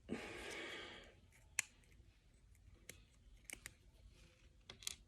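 Plastic toy packaging being handled: a rustle about a second long, then a handful of sharp plastic clicks and snaps as a small accessory is worked free of its moulded tray.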